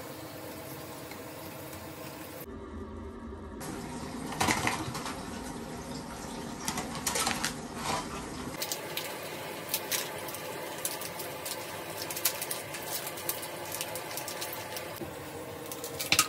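Plastic and foil packaging being handled: irregular crinkles, crackles and small sharp clicks, the loudest about four seconds in and again near the end.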